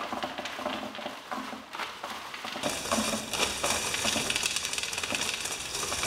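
A long chain of sticky notes peeling apart one after another and fluttering down a box, a fast, dense patter of small paper flaps and sticky-strip peels. It turns brighter and hissier about two and a half seconds in.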